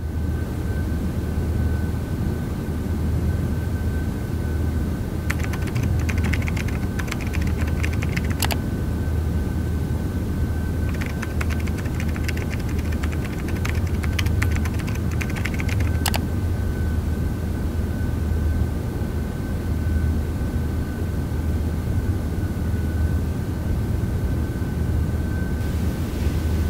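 Laptop keyboard typing in two bursts of rapid key clicks, about five seconds in and again about eleven seconds in, each lasting a few seconds and ending in one sharper keystroke. Under it a steady low hum with a faint high whine runs throughout.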